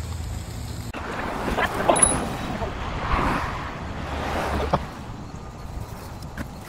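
A car driving past on the road. Its tyre and engine noise swells about two to five seconds in, with wind on the microphone and a few light knocks.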